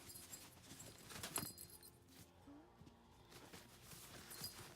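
Faint clicks and rustling from small puppies moving about and handling toys, with one sharper click about a second and a half in.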